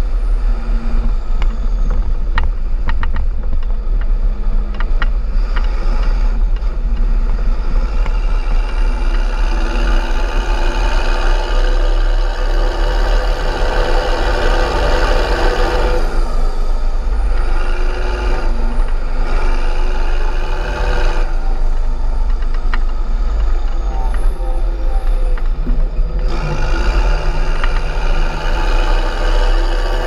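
Fendt 926 Vario tractor's six-cylinder MAN diesel engine running steadily under load while towing a full silage trailer, heard close up from outside the cab.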